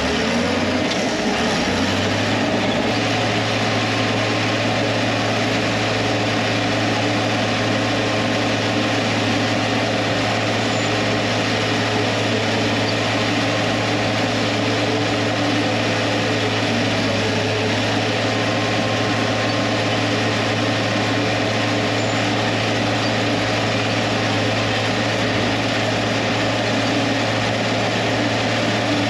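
Steady machine hum with a constant low tone that settles in about two seconds in and then stays even and unchanging, typical of a motor running at a constant speed.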